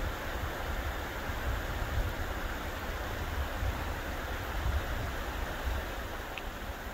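The San Juan River running steadily over rocks, a continuous rushing of water, with an uneven low rumble of wind on the microphone.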